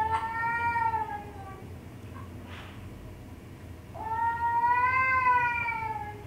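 Two long, drawn-out cat meows, each about two seconds, coming from a cat video played through the computer's speakers. The first sounds in the opening second and a half and the second about four seconds in, each bending up slightly and trailing off lower at the end.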